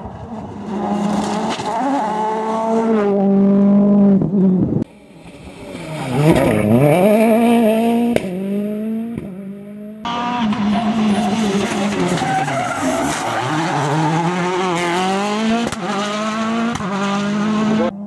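World Rally Cars' turbocharged engines revving hard through gear changes in a series of passes, the pitch sweeping down under braking and downshifts and climbing again as they accelerate away.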